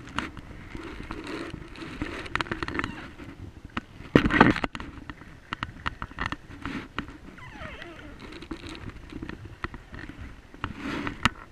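Double-bladed paddles working an inflatable kayak: water splashing and dripping off the blades, with scattered clicks and knocks. The loudest knock or splash comes a little past four seconds in.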